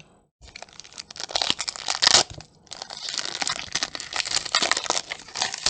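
Foil wrapper of a Pokémon Shining Fates booster pack crinkling and tearing as it is ripped open and pulled apart, in two stretches with a short pause between them.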